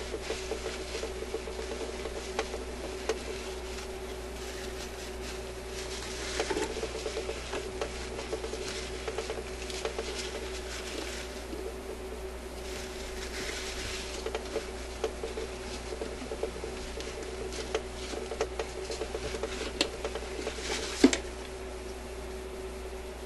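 Paper tissue rustling and rubbing as the metal post and gear of a record changer mechanism are wiped clean, with small scattered clicks and taps of the metal parts over a steady hum. A sharper click near the end.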